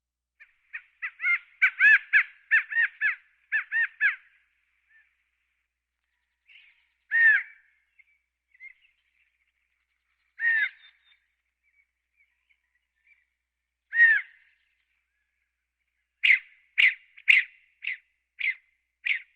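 California quail calling: a rapid run of short, clipped notes for about four seconds, then three single drawn-out calls a few seconds apart, then a steady series of sharp notes about two a second near the end.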